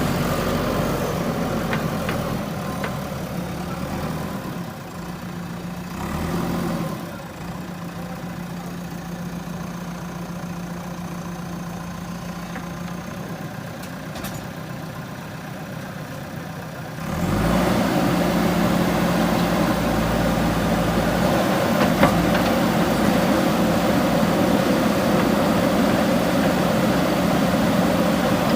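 Diesel engine of a JCB 3DX Super backhoe loader running steadily. It grows quieter for several seconds, then comes back louder suddenly about 17 seconds in. There is one sharp knock a few seconds later.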